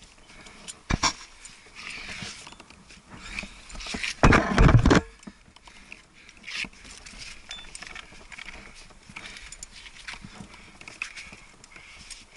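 A climber moving up a granite crack: scuffs and scrapes of gloved hand jams and body against the rock, with small clicks and jangles of climbing gear. A sharp click about a second in and a loud, rough rustle about four seconds in, lasting under a second.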